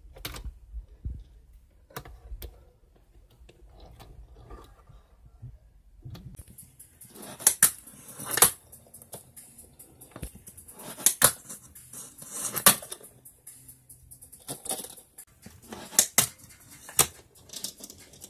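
Fingerboard clattering on a wooden desktop: irregular sharp clicks and clacks as the small deck pops and its wheels land on the wood. They are sparse and faint at first, and louder and more frequent from about six seconds in.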